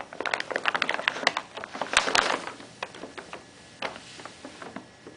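Brown paper bag crinkling and rustling as a cat shifts about inside it: a dense run of crackles for the first two and a half seconds, then scattered rustles.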